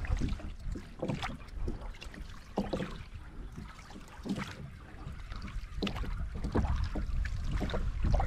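A small boat on the water: irregular knocks and splashes over a low rumble.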